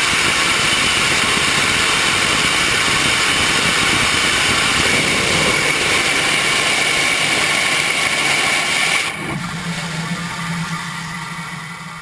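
Masten Katana KA6A regeneratively cooled LOX/IPA rocket engine firing on a static test stand at about 2,800 lbf of thrust: a loud, steady roar that cuts off sharply about nine seconds in as the engine shuts down. A quieter steady low hum is left after the cutoff and fades out near the end.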